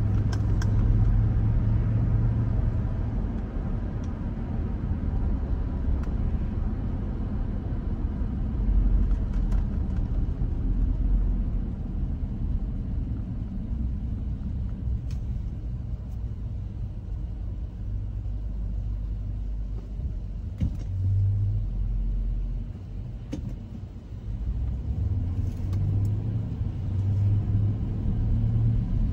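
Car driving, heard from inside the cabin: a steady low rumble of road and engine noise that eases for a moment about two-thirds of the way through, then builds again near the end, with a few faint scattered clicks.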